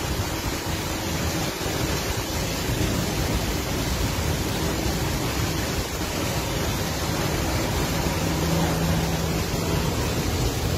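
Steady rain falling, an even hiss, with wind buffeting the microphone.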